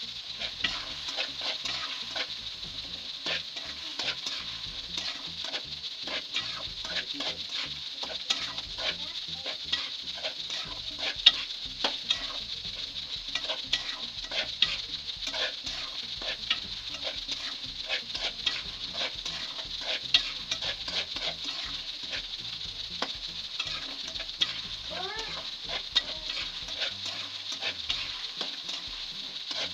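Chicken and masala sizzling in hot oil in a metal karahi while a metal spatula keeps stirring and scraping the pan bottom, with frequent scraping clicks. This is the bhunai stage: frying the masala down until it blends with the oil.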